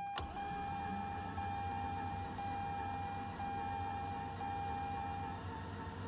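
Mazda RX-8 dashboard warning chime, switched on with the ignition: one steady beeping tone broken by a short gap about once a second, which stops a little over five seconds in. There is a click right at the start and a low steady hum underneath.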